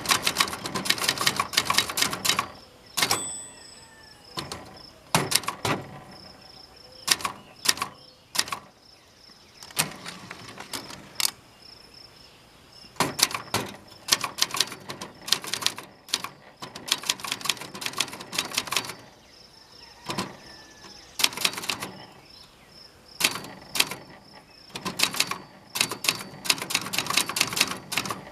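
Brother JP-1 manual typewriter being typed on: runs of quick type-bar strikes lasting a second or few, broken by short pauses, with a metal rattle from the thin metal table it stands on.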